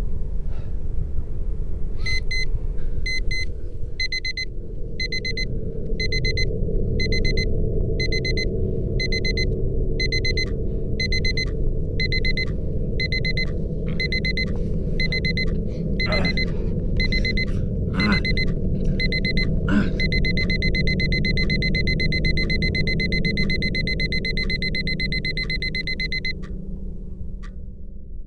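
Alarm clock beeping in repeated short beeps, which turn into one continuous beep about twenty seconds in and cut off suddenly near the end, over a steady low rumble with a few sharp knocks.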